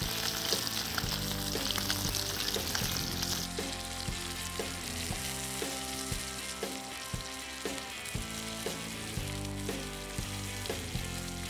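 Battered fish fillets sizzling in hot oil in a frying pan over a campfire, with background music throughout. The sizzle drops away about three and a half seconds in.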